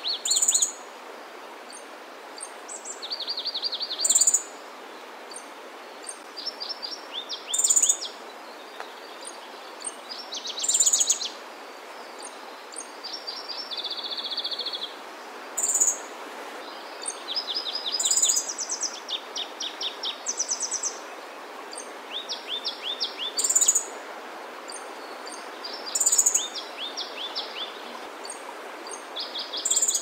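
Grey-streaked flycatcher calling: a sharp high note every three seconds or so, with quick runs of short, lower notes between them, over a steady background hiss.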